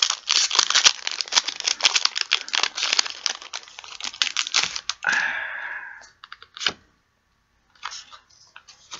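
Foil booster pack of Pokémon cards being crinkled and torn open: a rapid run of crackles for about five seconds, then a longer tearing sound, followed by a few light clicks.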